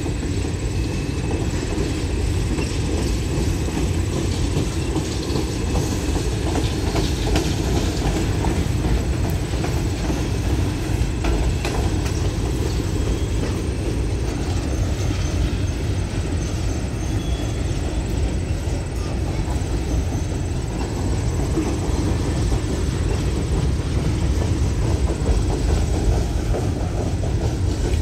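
Loaded Norfolk Southern coal hopper cars rolling past: a steady rolling noise of steel wheels on rail, strongest in the low end, with a constant stream of small wheel clicks.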